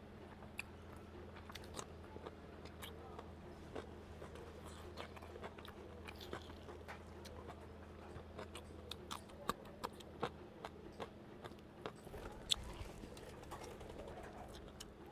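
Faint, close-miked chewing and mouth sounds of a man eating rice and chicken curry with his fingers, with many short sharp clicks and smacks scattered through.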